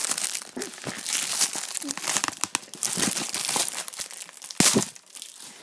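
Clear plastic shrink-wrap being pulled off a DVD case and crumpled in the hand: irregular crinkling and crackling, with one louder crackle about four and a half seconds in.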